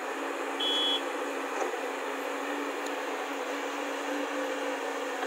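JCB tracked excavator's diesel engine running steadily as the machine swings its arm back from the dump truck, with a short, high electronic beep about half a second in.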